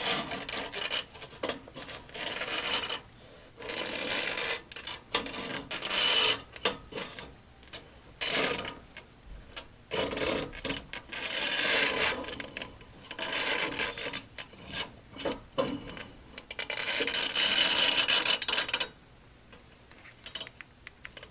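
Irregular bursts of rubbing and scraping as a snake inspection camera's probe and cable are worked into a gas furnace's burner section, rubbing against the metal inside. The scraping stops a couple of seconds before the end.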